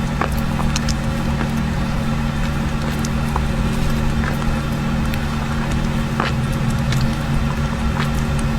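Steady low mechanical hum with scattered small clicks and crackles over it.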